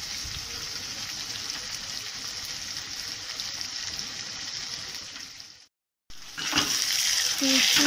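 Chopped tomatoes and onion sizzling gently in oil in a wok over a low gas flame, a steady hiss. The hiss fades and breaks off about five and a half seconds in, then comes back louder.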